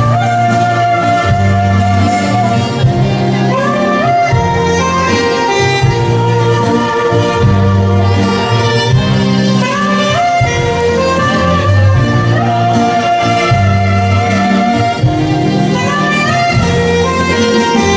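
Saxophone playing a melodic solo over a big band's horns and steady bass line, in an instrumental passage of a slow Thai popular song.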